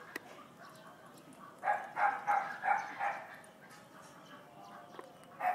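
Faint dog barking: a run of about six quick barks starting about a second and a half in, and another run starting near the end.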